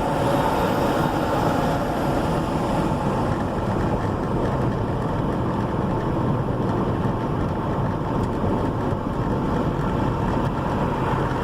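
Steady road and engine noise heard inside a moving car, with the rattle of the dashboard phone holder mixed in.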